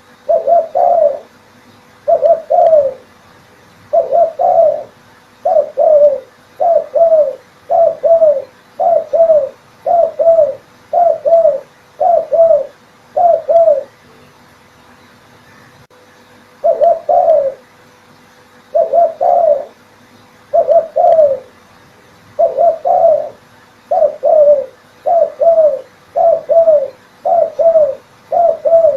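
Spotted dove cooing, used as a lure call for trapping doves: short coos repeated about once a second, with a pause of a couple of seconds about halfway through.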